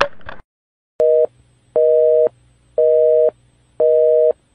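Telephone busy signal: a steady two-note tone beeping on and off about once a second, four beeps starting about a second in, the first one cut short.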